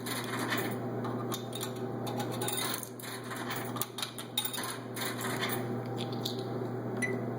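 Irregular clicks and rattles of money being fed into a soda vending machine to buy a second can, over a steady low hum.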